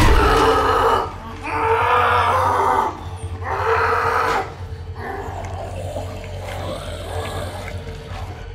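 Three loud, harsh cries, each about a second long, over a steady low drone and a held tone; after about four and a half seconds only the quieter drone goes on.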